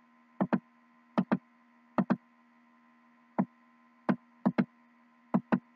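Computer mouse clicking while paging through slides: sharp clicks, mostly in quick pairs, at uneven gaps, about seven times. A faint steady electrical hum sits underneath.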